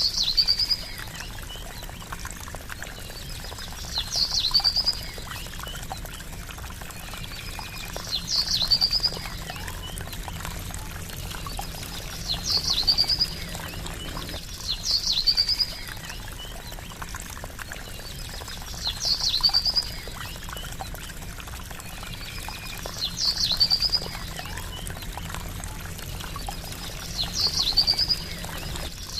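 Gently trickling water, with a bird giving the same short, high call about every four seconds, eight times over.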